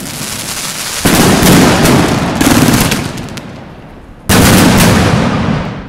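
Evolution Fireworks '3x Heaven' 40-shot fireworks cake firing, a dense run of launches and bursts. It surges louder with fresh volleys about a second in, again about two and a half seconds in, and once more just after four seconds, fading between them.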